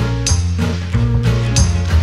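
Background instrumental music in a jazzy style, with a steady bass line and a drum or cymbal hit about every second and a half.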